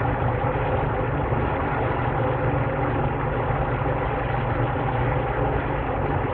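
A steady low mechanical hum with an even hiss, unchanging in level, like a motor or engine running.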